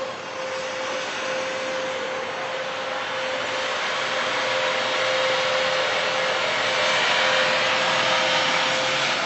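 A steady rushing drone with a constant mid-pitched hum running through it, swelling slightly louder partway through, like a vacuum cleaner: one of the unexplained 'strange sounds in the sky'.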